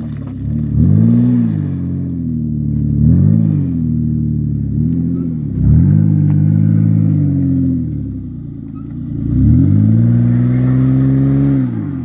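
Off-road vehicle engine revving in four surges, each climbing in pitch then dropping back; the last, near the end, is held for about two seconds.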